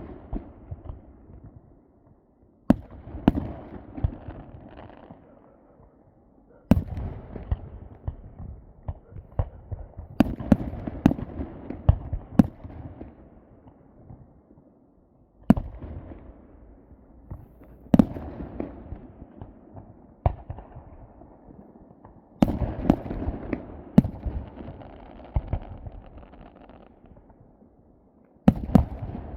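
Aerial fireworks bursting: a loud bang every few seconds, each followed by a spray of smaller crackles and a fading rumble, with a quick cluster of several bangs about halfway through.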